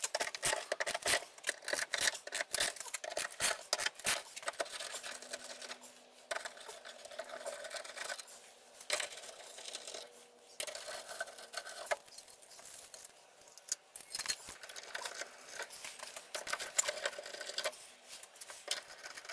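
Socket ratchet clicking in quick runs as 13 mm bolts are undone from a steel exhaust-to-chassis bracket, with small metal clinks of tool and bracket.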